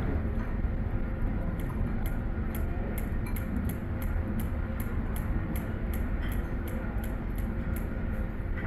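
Kitchen scissors snipping through boiled sheep's tripe, a run of quick faint clicks several times a second over a steady low room rumble.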